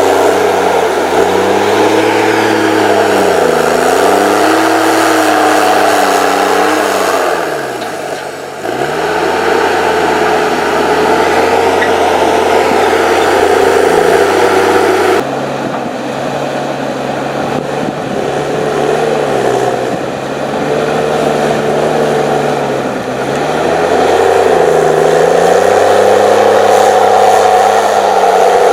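Diesel engine of an HSM 904 S forestry machine (6.7 litres, 238 hp) running hard. Its pitch sags and recovers several times as it lugs under load, most deeply about a third of the way in, and its sound changes abruptly about halfway through.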